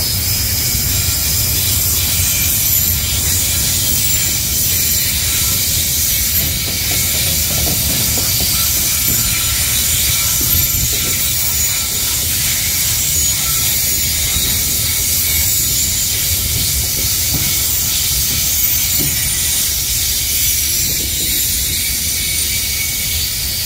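Loaded freight wagons of a long train rolling steadily past: a continuous hiss of steel wheels on the rails over a low rumble, even throughout.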